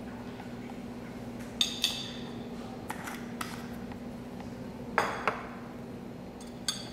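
Spoon and small ceramic bowl clinking on a kitchen countertop while instant coffee and milk are measured in: about seven sharp clinks and knocks, a few of them ringing briefly, the loudest about five seconds in.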